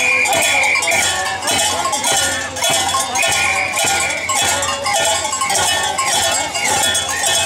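Bells clanging in a steady dance rhythm, about two strokes a second, over high-pitched voices from the dancing group.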